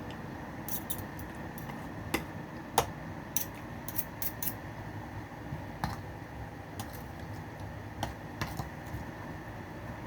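Spoon and fork clicking and scraping against a plate while eating, scattered light clicks with the sharpest about three seconds in, over a steady low background hum.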